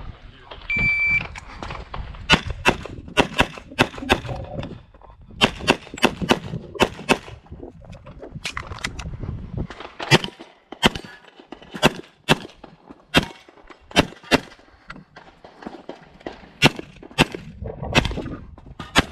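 Electronic shot timer start beep, then many pistol shots fired in quick strings of two or more with short pauses between, from an STI 2011 pistol in .40 S&W during an IPSC stage run.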